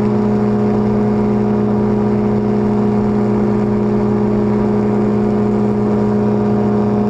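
A powered parachute's engine and propeller droning at steady cruise power, loud and holding one even pitch throughout.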